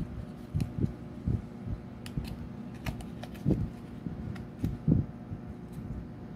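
Hands folding and handling a cardstock paper finger puppet close to the microphone. Irregular soft thumps and knocks come with a few crisp paper clicks and creases, over a faint steady hum.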